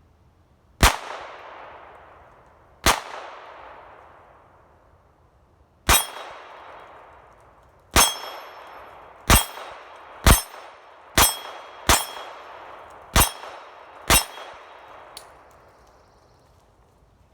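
Ten shots from a Ruger Standard .22 pistol, each sharp crack trailing off in a long echo. The first three are a few seconds apart, then the pace quickens to about one a second. The later shots carry a short metallic ring.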